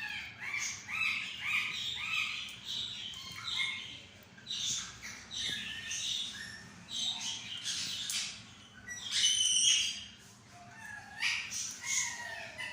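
Pet green parrot calling and chattering: a run of short repeated calls, the first four alike and about half a second apart, then varied chirps and squawks with a loud harsh burst a little past the middle.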